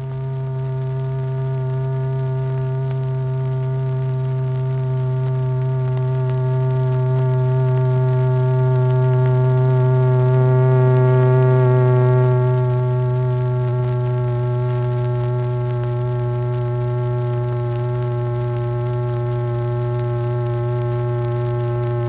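A sustained low humming tone with a ladder of overtones: the tone that sets the membrane vibrating. It swells gradually to its loudest about halfway through, then eases back a little and holds steady.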